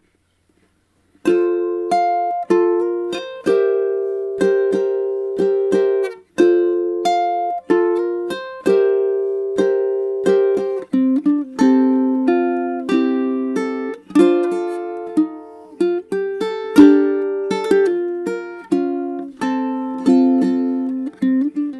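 Ukulele strung with Martin M620 clear fluorocarbon strings, playing a melody with chords; each stroke rings and decays, starting about a second in.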